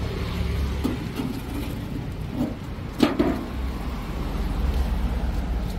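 Low steady rumble of street traffic, with one sharp knock about three seconds in.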